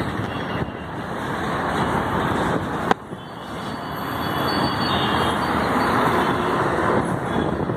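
City road traffic: three-wheeler auto-rickshaws, a van, a motorcycle and a bus driving past, a steady engine-and-tyre noise that grows louder in the second half. A single sharp click comes about three seconds in.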